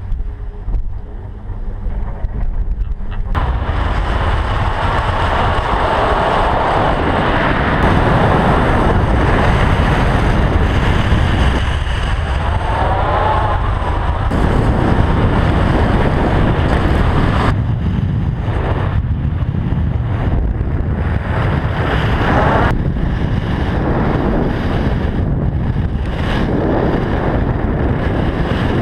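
Loud wind rushing over the microphone of a pole-mounted action camera during a fast ski run, mixed with the hiss of skis carving on packed snow. The noise comes in suddenly about three seconds in and dips briefly a few times with the turns.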